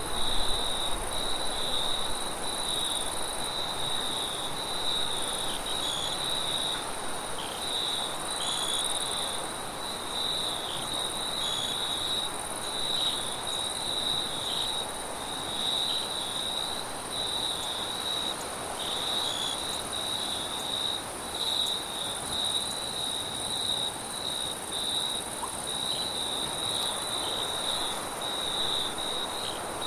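Crickets chirping in a dense, unbroken chorus, a steady high trill, over a soft, even rush of wind that swells and eases slowly.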